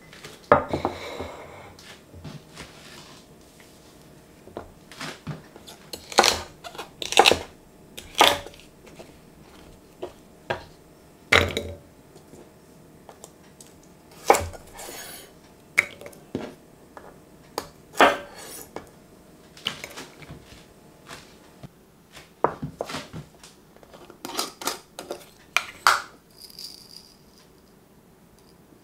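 Irregular sharp knocks and clinks of kitchen prep on a wooden chopping board: a ceramic bowl set down, a knife cutting celery and garlic against the wood, and a small jar handled.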